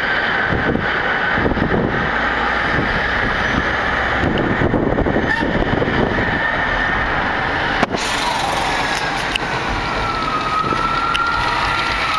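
Manhattan traffic heard from a moving taxi: steady road and engine noise as a city bus and other large vehicles pass close alongside. A faint high whine drifts slowly lower in pitch, and a single sharp click comes just under 8 seconds in.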